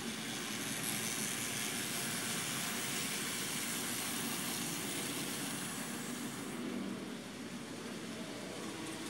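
Model train locomotives running past close by, a steady whirring of motors and wheels on the rails that thins out and drops a little about six and a half seconds in.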